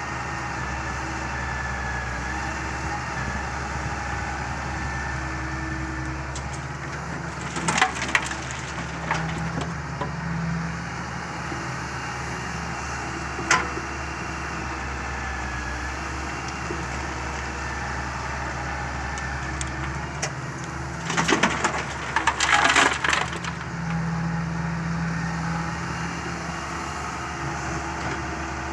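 Doosan Solar 130W wheeled excavator running steadily while loading gravel, with bursts of gravel crunching and clattering about eight seconds in and again for a couple of seconds past the twenty-second mark.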